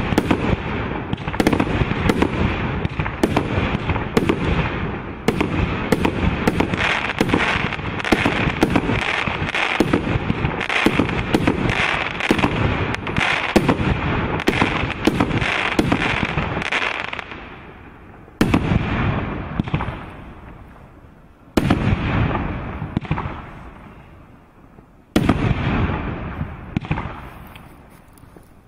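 Mixed-size fireworks cake firing: a rapid, dense string of shots and bursts for about seventeen seconds, then three single louder bangs a few seconds apart, each fading out.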